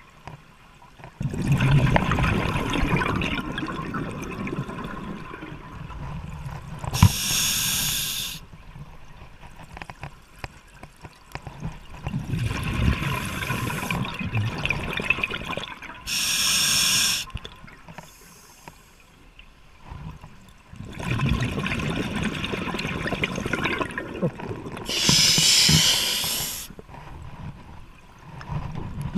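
Scuba diver breathing through a regulator underwater: long stretches of bubbling exhaust bubbles, each followed by a short hiss of inhalation through the demand valve, three breaths about nine seconds apart.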